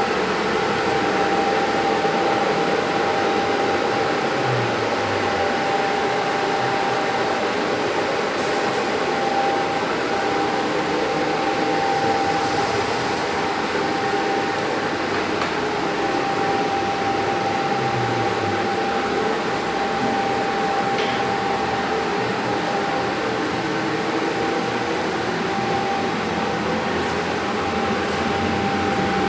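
Steady mechanical whir with a constant high whine running through it.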